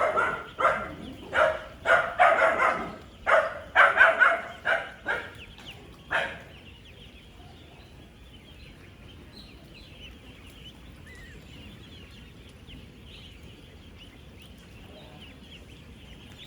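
A large flock of young ducklings peeping together, a steady dense chatter of many small high chirps. For the first six seconds a run of loud, short, repeated calls sounds over it and then stops.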